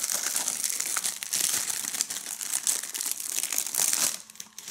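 Clear plastic shrink-wrap being peeled off a DVD case and crumpled in the hand, a dense crinkling and crackling that stops about four seconds in.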